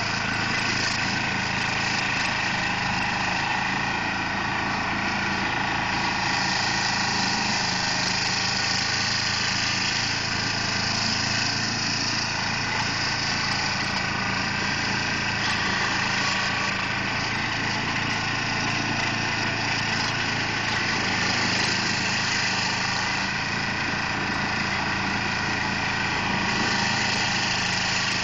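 2004 Carlton SP4012 stump grinder running steadily, its cutter wheel grinding into a stump, with the higher grinding hiss growing and easing in stretches over the steady engine.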